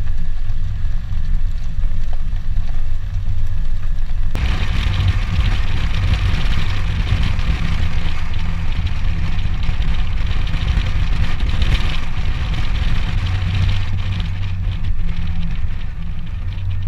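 Wind buffeting the camera's microphone beside a moving car's open window, with a steady low rumble of car and road noise. About four seconds in, a louder rushing hiss of wind and road noise comes in and stays.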